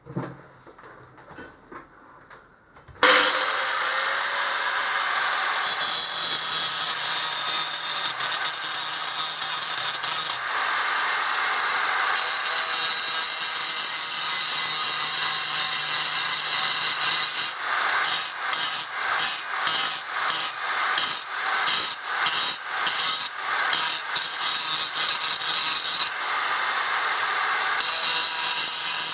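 Angle grinder grinding a calcite ammonite fossil, starting suddenly about three seconds in and running loud with a high-pitched whine. For a stretch past the middle the sound pulses about twice a second. Before it starts, a few faint knocks.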